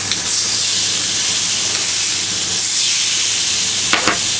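Fillet steaks sizzling loudly on a hot ridged griddle pan, searing on the side just turned over. There is a sharp click about four seconds in.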